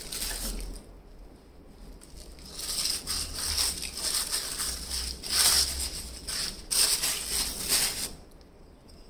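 Tissue paper rustling and crinkling as it is pulled out of a box and unwrapped by hand: a short burst at the start, then a longer stretch from about two and a half seconds in until near the end.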